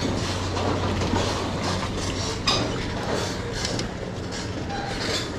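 A small bass splashing at the surface as it is reeled to the boat and swung aboard, with a steady clatter of fishing reel and handling noise over a low hum.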